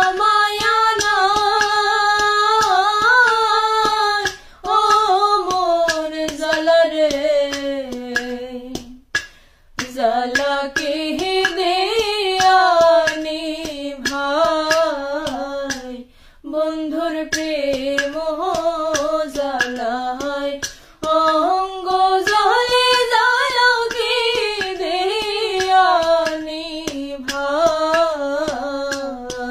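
A woman singing a slow Bengali folk song in long, drawn-out melismatic phrases with short breaths between them, over a steady tapping beat.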